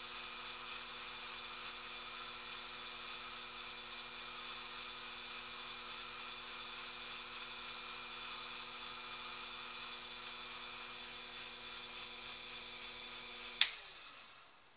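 Small bench lathe's electric motor running steadily with a hum and a high whine. About a second before the end it is switched off with a click and winds down to a stop, its pitch falling.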